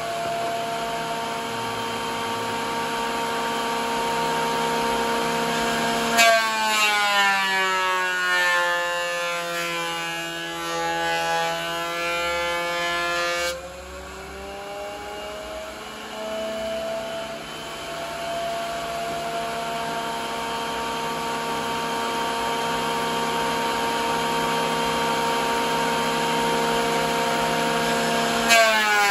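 Makita 2040 thickness planer running with a steady high whine. About six seconds in, the pitch sinks as a board is fed and the cutterhead takes the cut; it holds low for about seven seconds, then climbs back to full speed as the board comes out. Just before the end a second pass pulls the pitch down again.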